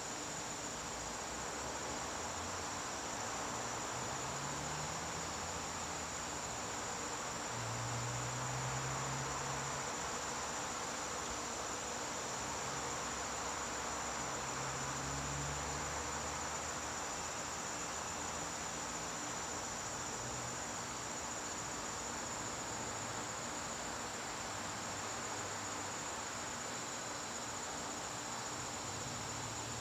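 Crickets calling in a continuous, steady high-pitched trill, over a low wash of background noise.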